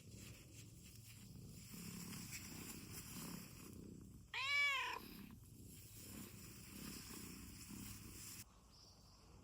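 Domestic cat purring steadily, with one short meow about four and a half seconds in; the purring stops near the end.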